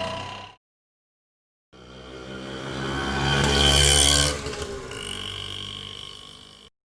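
Auto rickshaw engine driving past after a second of silence: the engine sound builds up, peaks about four seconds in, then drops in pitch and fades away.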